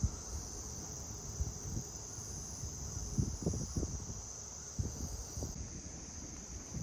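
Crickets trilling in a steady, unbroken high-pitched chorus, with scattered low thumps and knocks underneath.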